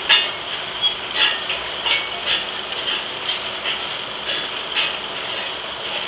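Machinery of an 1880s steam-powered circular sawmill running, with uneven sharp metallic clicks about two a second over a steady hiss.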